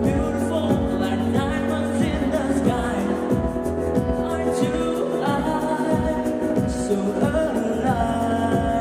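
Male singer singing a Vietnamese pop song live into a handheld microphone over instrumental accompaniment with a steady beat.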